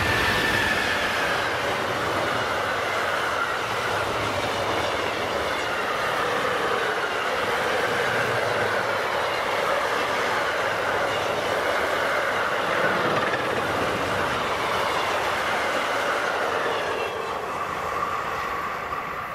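Freight train of double-deck car-transporter wagons rolling past: a steady rumble of wheels on rail with a wavering squeal from the wheels, fading as the last wagons pass near the end.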